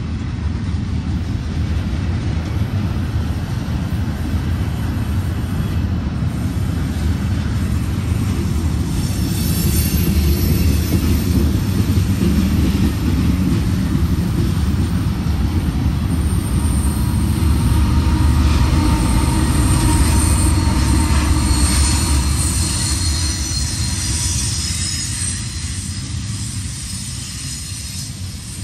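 Freight train of tank cars rolling past close by: a steady low rumble of wheels on rail, with high-pitched wheel squeal that comes in about a third of the way through, is strongest in the second half and eases near the end.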